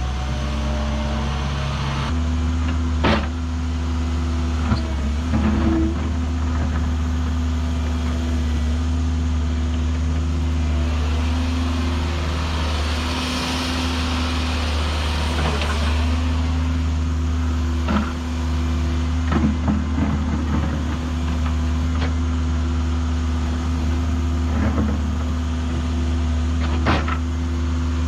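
Excavator diesel engine running steadily under work, its note shifting about two seconds in, with a few sharp metal clanks and a brief hiss midway.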